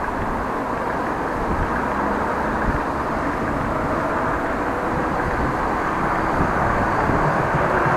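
Steady, even rumbling noise of road traffic and wind, with no distinct single event.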